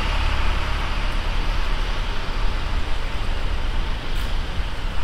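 Steady street traffic and road noise, heaviest in a deep low rumble.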